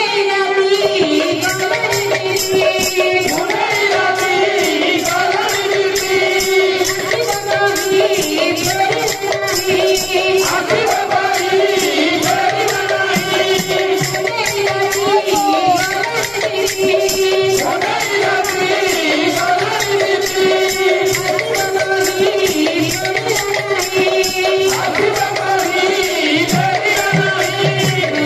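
Devotional kirtan music: a singer on a microphone, with two-headed barrel drums beating a quick rhythm and small hand cymbals jingling along, over a sustained melodic line.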